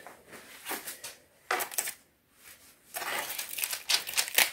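Metal kitchen tongs clicking and scraping on a foil-lined baking sheet as stuck slices of baked hog jowl are pried up. Scattered clicks first, a lull of about a second in the middle, then a quicker run of scraping.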